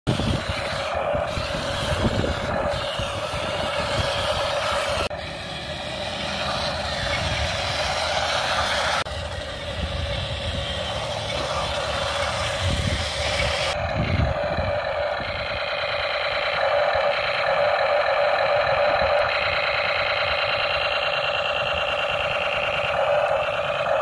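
Toy RC War Tank 9993 driving, its built-in speaker playing an electronic tank-engine sound effect over the whir of its small drive motors and tracks. The sound changes abruptly about 5, 9 and 14 seconds in, and from about 14 seconds it settles into an evenly repeating, looping pattern.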